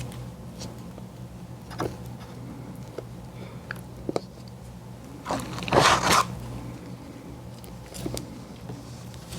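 Close-miked eating of an ice cream dessert: one big crunchy bite about halfway through, with a few small mouth clicks before and after, over a steady low hum.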